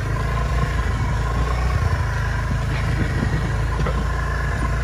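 A motor vehicle engine running steadily at low speed, with a faint wavering whine above the rumble.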